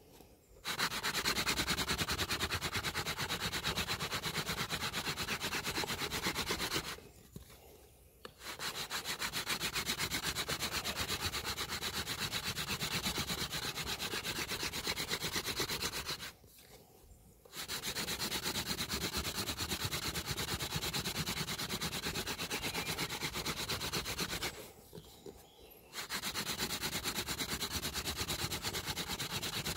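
Hand-drill friction fire: a hazel spindle spun back and forth in the socket of a dry bay laurel hearth board, a steady dry grinding of wood on wood. It stops three times for about a second. Black charred dust is building up at the notch as the friction works toward an ember.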